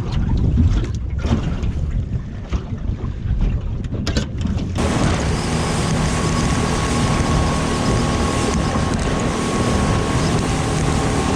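Wind buffeting the microphone on a small boat, with a few knocks. About five seconds in, the sound switches abruptly to a boat's motor running under way, with a steady engine tone over loud wind and water rush.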